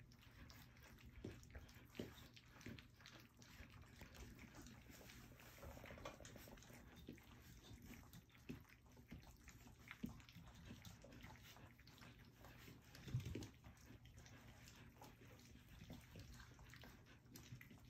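Faint lapping, smacking and clicking of a litter of almost four-week-old puppies eating their first meal from a round feeding pan, with one brief louder sound about thirteen seconds in.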